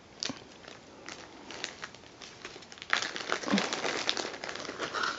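Tissue paper and a plastic bag crinkling around a cardboard box as a cat noses into it: faint scattered crackles at first, then louder, denser rustling from about three seconds in.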